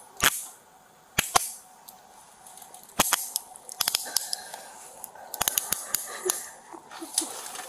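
Metal handcuffs being closed on a person's wrists: sharp metallic clicks of the ratchet, single clicks spread out with a quick run of several about five and a half seconds in.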